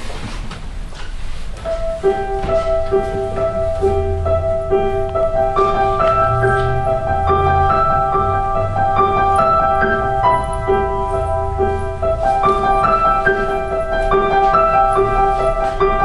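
Live piano playing starts about two seconds in: a steady pulse of repeated notes and chords, with a moving melody above them.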